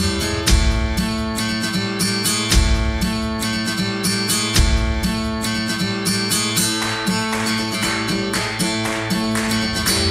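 Intro music led by acoustic guitar, with a steady rhythm and a deep bass note about every two seconds.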